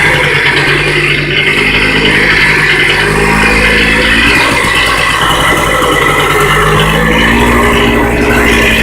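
Polaris two-stroke engine running loud, its revs rising and falling.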